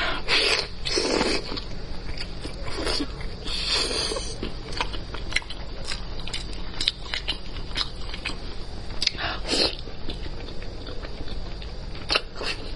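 A person eating spicy braised pork elbow close to the microphone: biting and chewing the soft, sauced skin and meat, with many wet mouth clicks and smacks and a few longer slurps. A steady low hum runs beneath.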